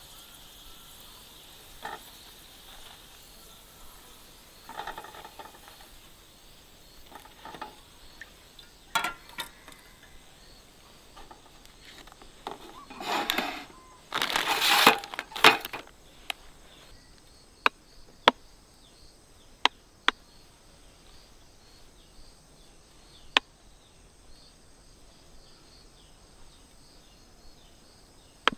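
Handling noises: sharp clicks and clinks scattered throughout, with a few seconds of rustling or scraping about halfway through, over a faint steady outdoor background.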